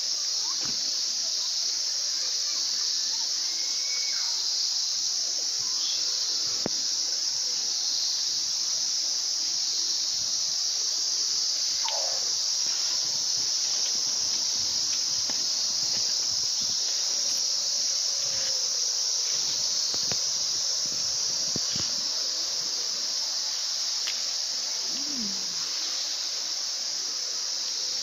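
Steady, high-pitched chorus of insects such as crickets, shrill and unbroken, with light rustling of leaves and a few faint short chirps beneath it.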